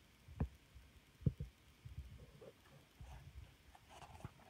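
Faint handling noise as the packaged massage roller is picked up and moved: a few soft knocks, the first about half a second in, two close together after about a second and another near the end, with light rubbing between.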